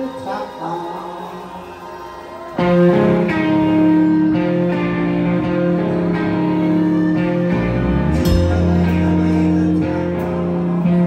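Live psychedelic rock band playing. A quieter held drone breaks into a loud full-band entry about two and a half seconds in, with long sustained chords over it, and a deep bass note joins later on.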